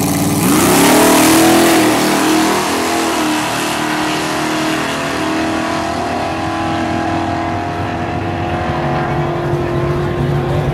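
Drag-racing car launching from the start line at full throttle, its engine note climbing sharply about half a second in, then running hard down the strip as it pulls away.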